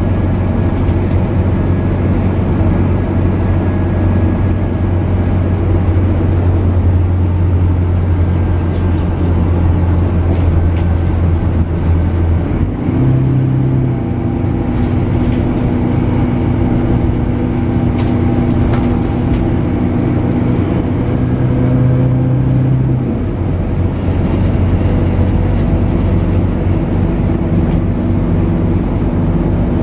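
Scania DC9 nine-litre six-cylinder diesel of a Scania K94UB bus, heard from inside the passenger cabin while driving: a steady drone whose pitch changes about 12 seconds in and again about 23 seconds in.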